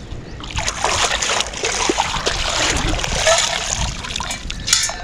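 Water splashing and sloshing as a perforated metal sand scoop is worked in shallow lake water, sand and water draining out through its holes. A short splash comes near the end.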